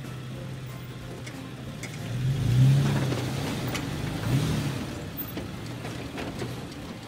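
Toyota FJ Cruiser's 4.0-litre V6 running low while crawling through a dirt rut, revving up about two seconds in, its loudest moment, and again more briefly about four seconds in. A few faint clicks are scattered through it.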